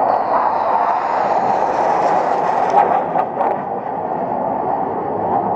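Steady jet noise from a formation of Red Arrows BAE Hawk T1 jets flying overhead, with a higher hiss that rises over the first couple of seconds and a few brief clicks near the middle.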